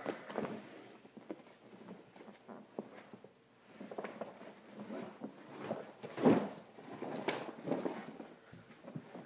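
A large fabric Warrior hockey equipment bag being lifted and handled: rustling of the bag's fabric with scattered knocks and taps, the loudest about six seconds in.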